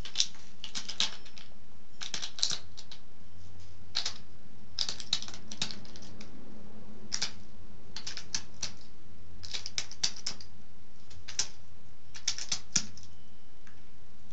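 A hen pecking at peanuts on a litter floor, her beak striking in quick clusters of sharp clicks, about one cluster a second.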